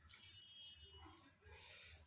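Near silence, with faint handling sounds of a meal eaten by hand from steel plates and a short soft scrape about one and a half seconds in, as a small steel bowl is tipped over the rice.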